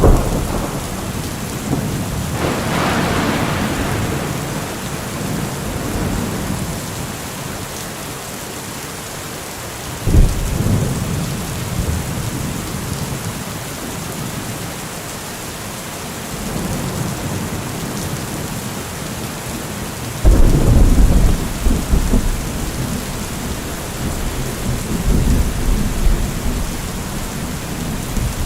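Thunderstorm: steady rain falling, with repeated thunder. A sharp crack comes right at the start, then a crackling peal, another sudden crack about a third of the way through, and the loudest, longest rumble about two-thirds through, trailing off into smaller rumbles.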